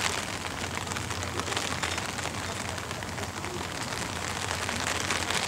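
A steady, even hiss of noise with a fine, rapid crackle through it and a low steady hum underneath.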